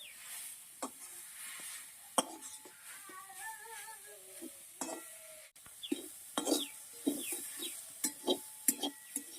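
Leafy greens being stirred in a karai (Indian wok): a spatula scrapes and clicks against the pan at irregular intervals over a faint sizzle of frying.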